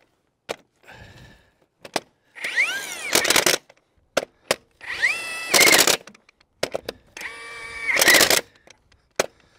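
Cordless Ingersoll Rand 1-inch impact wrench driving bulldozer track-roller bolts down, run three times: each time the motor whines up in pitch, then the hammer rattles rapidly as the bolt seats. Short clicks fall between the runs.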